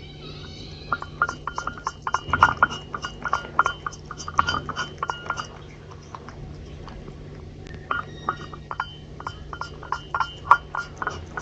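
Dragon Li cat licking a dish clean: rapid, wet tongue clicks in two runs, with a pause of about two seconds between them.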